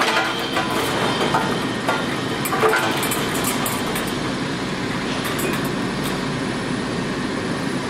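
PET stretch blow moulding machine running: a steady mechanical din from its preform-heating oven chain and feed, with irregular light clicks and rattles as plastic preforms feed down the rail into the star wheel, most of them in the first three seconds.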